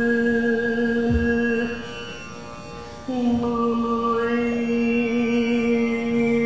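Overtone singing over a tanpura drone: a held low note with a whistle-like overtone ringing above it. The note breaks off for about a second near the middle, then returns with the overtone at new pitches.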